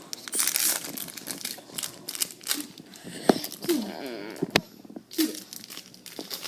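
Rustling and crinkling with many sharp clicks, the loudest a little after three seconds in and again about four and a half seconds in. In between come a few short squeaky sounds that slide in pitch.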